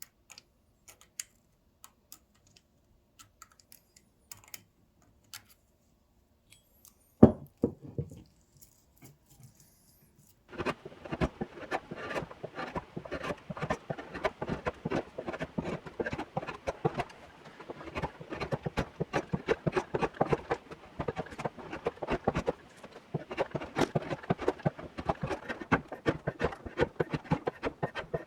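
A few light clicks and one sharp knock, then from about ten seconds in, rapid continuous hand-scrubbing strokes of an abrasive tool working the rusty iron of a hand-forged pick-hoe head.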